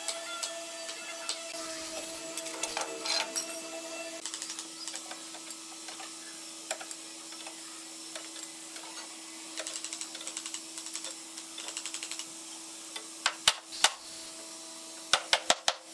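Steel bar clamps being handled and set on a wooden panel frame: scattered metal clicks and knocks, with a quick run of sharp, loud clicks near the end, over a steady hum.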